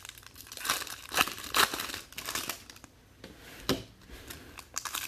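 Foil trading-card pack wrappers being torn open and crinkled by hand, in irregular bursts of crackling with a quieter lull about three seconds in.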